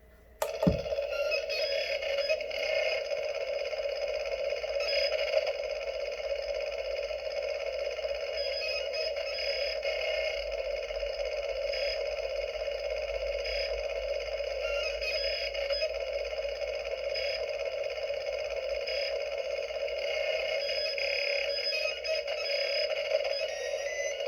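Electronic sound effect for a flashing-light chaos panel: a steady hum of noisy tones with short beeps and chirps scattered through it, switching on with a click about half a second in.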